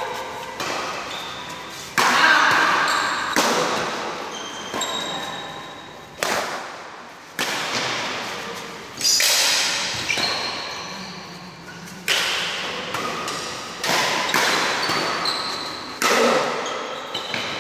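Badminton rackets smacking a shuttlecock back and forth in a rally, one sharp hit every second or so, each ringing out in the echo of a large hall. Short high squeaks sound between the hits.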